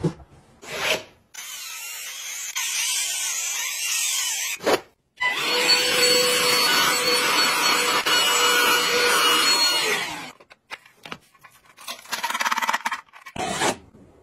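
Small handheld cleaning appliance running for about five seconds with a steady whine, between shorter rubbing and scraping noises.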